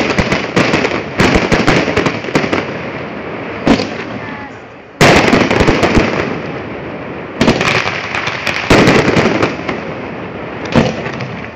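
Fireworks display: aerial shells bursting in a continuous barrage of bangs and dense crackling. Fresh loud volleys break in every couple of seconds, the sharpest about five seconds in.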